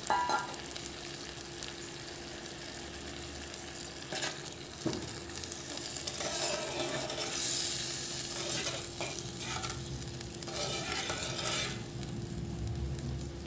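Mung dal sizzling and bubbling in a kadai while a spatula stirs and scrapes through it in several spells, loudest a little past halfway, with one sharp knock about five seconds in.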